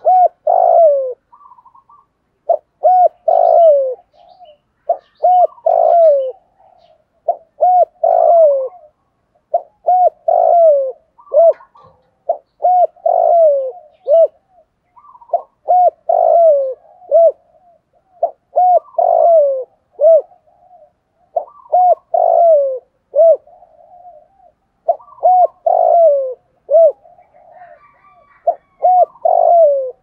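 Spotted dove cooing its song phrase over and over, about once every two and a half seconds: a few short coos ending in a longer falling note. It is a decoy dove giving the calling song used to draw in wild spotted doves.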